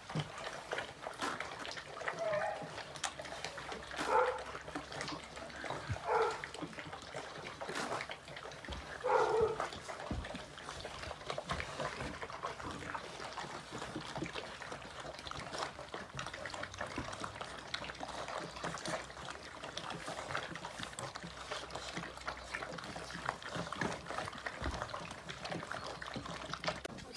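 A litter of Entlebucher Sennenhund puppies eating together from a plastic multi-bowl feeder: continuous lapping, chewing and small clicks of muzzles and teeth against the bowls. A few short puppy whines come in the first ten seconds.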